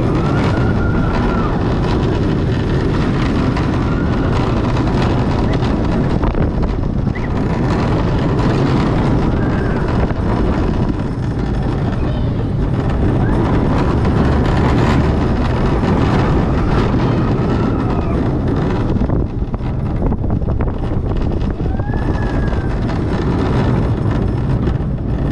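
Zierer steel roller coaster train running along its track, heard from the front seat: a steady rush of wind and wheel rumble, with a few short rising-and-falling whines along the way.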